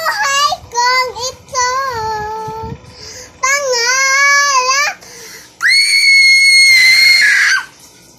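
A little girl singing unaccompanied in Tagalog, short phrases with a wavering vibrato on the held notes. About five and a half seconds in she lets out one long, shrill, very high note, held steady for nearly two seconds.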